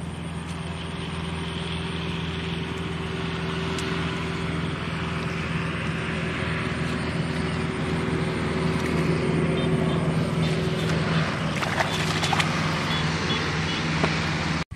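An engine running steadily, growing gradually louder over the first ten seconds, with a few sharp clicks near the end before it cuts off abruptly.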